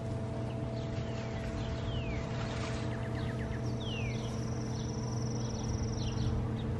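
Songbirds chirping, with a couple of quick falling whistles and a high thin trill lasting a few seconds, over a steady low mechanical hum.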